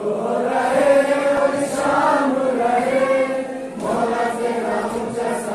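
Men's voices chanting an Urdu noha, a Muharram lament, drawing out long held notes.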